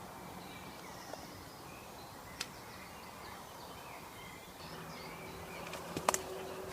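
Quiet woodland ambience with faint bird chirps. There is a sharp click about two and a half seconds in and a louder cluster of clicks near the end. A faint low hum comes in a little after the middle.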